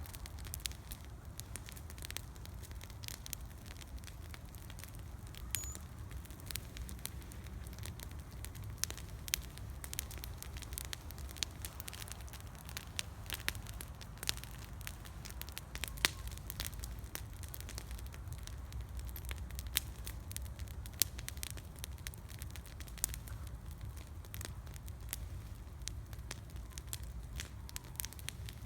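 Campfire burning and crackling, with frequent irregular sharp pops over a steady low rumble.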